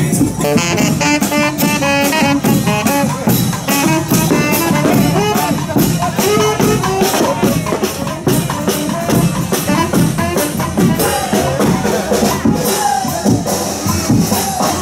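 Brass band music with saxophone and drums playing a melody over a steady beat.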